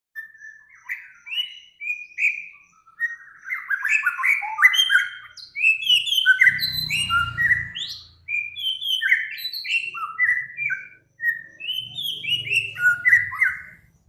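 A songbird singing a fast, varied song of short whistled and chattering notes, in several runs broken by brief pauses. A low rumble sits underneath in the middle and again near the end.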